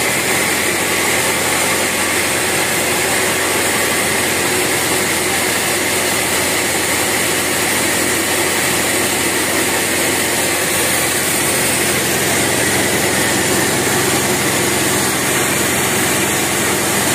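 Sawmill band saw and its drive running steadily, not cutting: a constant loud machine noise with a steady high hum.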